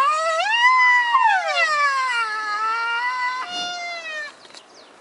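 White rhinoceros giving a long, high-pitched whine whose pitch slides up and down. It breaks off a little over four seconds in.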